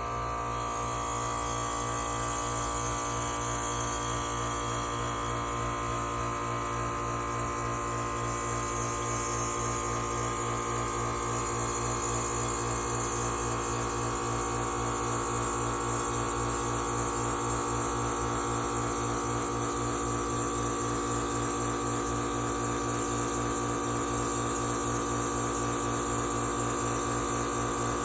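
Air conditioner outdoor unit running: compressor and condenser fan giving a steady hum with an airy hiss over it. The unit is short-cycling.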